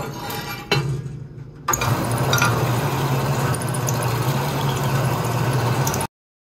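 Metal-cutting vertical bandsaw: a click under a second in, then the motor hum, and from about two seconds in the loud, steady noise of the blade cutting through steel plate. It cuts off suddenly near the end.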